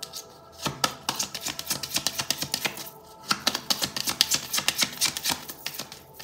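A deck of tarot cards being shuffled by hand: fast runs of light card flicks and slaps, in two stretches with a short pause about three seconds in.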